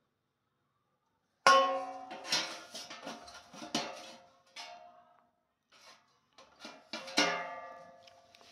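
After a moment of silence, the air fryer's round metal pan and perforated basket clank together several times, each knock ringing briefly like a pot; the first knock, about a second and a half in, is the loudest, with another strong one near the end.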